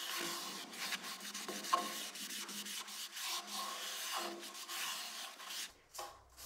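A cloth wet with shellac sanding sealer rubbed by hand over a sanded wooden platter held on a stopped lathe: a continuous scrubbing that swells and fades with each stroke, then stops near the end.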